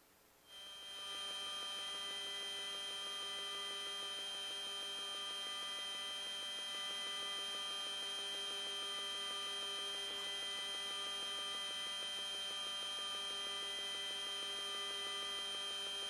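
Steady electrical hum with many overtones on the radio audio line, switching on abruptly about half a second in and holding unchanged.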